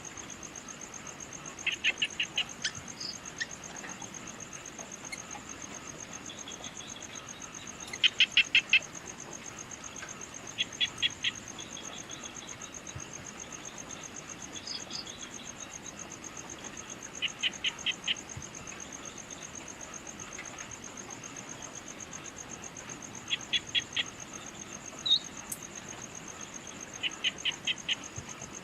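A steady, high, pulsing insect trill from crickets, with a bird repeatedly giving short, loud bursts of four to six quick notes every few seconds, and a few single chirps in between.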